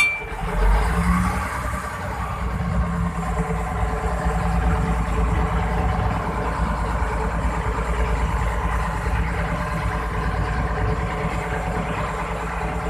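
Boat engine running steadily at sea, a continuous low drone with no change in speed.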